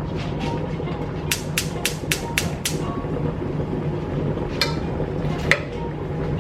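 Kitchen food-prep sounds over a steady low hum: a quick run of six sharp taps about a second and a half in, then two single knocks later.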